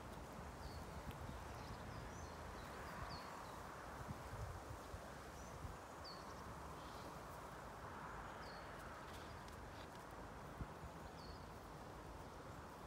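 Faint outdoor ambience: short high chirps of a small bird every second or two over a low rumble.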